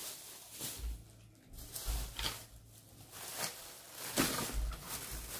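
Rustling and a few soft thumps as Christmas tree decorations are handled and set down.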